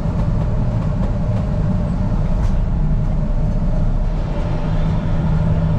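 Semi truck's diesel engine running with a steady low rumble and hum.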